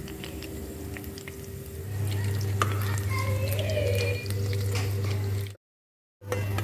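Batter-coated stuffed chillies frying in hot oil in a wok, sizzling and crackling, with a metal spatula scraping and tapping the wok as they are turned. A low steady hum comes in about two seconds in, and the sound cuts out briefly near the end.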